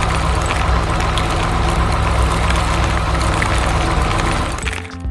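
Heavy diesel engine of a road roller running steadily with a deep rumble, cutting away just before the end.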